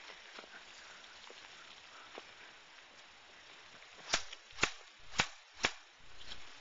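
Four sharp snaps from an airsoft gun fired in single shots, about half a second apart, over roughly a second and a half.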